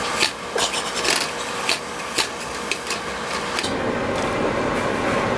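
A thin wooden stick scraping and tapping against a small metal frying pan as greens are stirred, with a string of sharp clicks over a steady hiss. The clicks stop a little past halfway.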